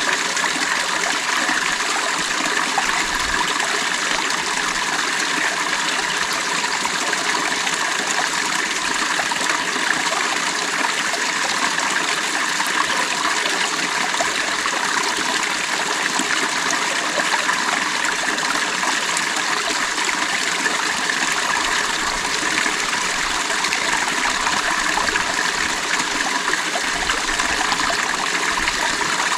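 Creek water running steadily over rocks, a continuous babbling rush.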